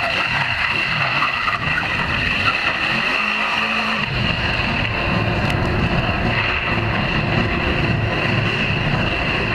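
Yamaha VMAX V4 motorcycle engine revving as the bike is ridden around in turns, its pitch rising and falling. A steady high-pitched whine runs under it throughout.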